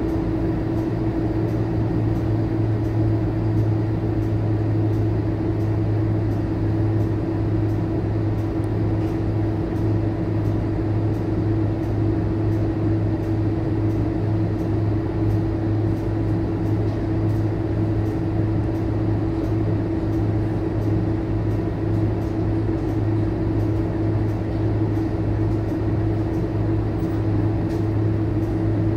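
Scania K230UB city bus's five-cylinder diesel engine idling steadily, heard from inside the passenger cabin as a constant low drone with a steady hum above it.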